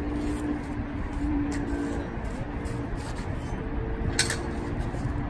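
Steady low rumble of road traffic with a held engine hum, and one short sharp high click about four seconds in.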